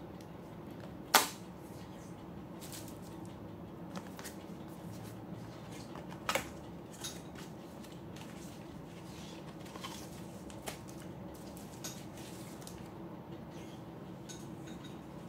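A cardboard camera box being handled and opened: a sharp tap or click about a second in and another about six seconds in, with scattered lighter clicks over a steady low hum.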